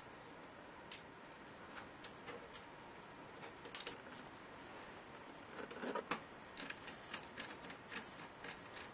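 Scattered light clicks and taps of small laptop parts and tools being handled, with a louder cluster about six seconds in and then a run of clicks about three a second.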